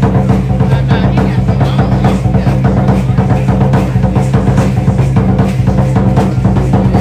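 Music with a strong drum beat: bass drum and snare over steady low bass notes.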